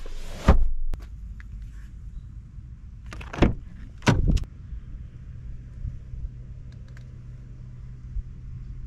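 Car doors of a Mercedes C-Class Estate being opened and shut: a heavy thud about half a second in, two more about three and four seconds in, then a steady low hum.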